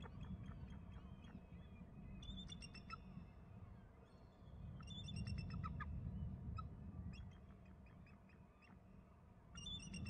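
Bald eagles calling: several series of quick, high, chittering notes, one after another, over a steady low rumble.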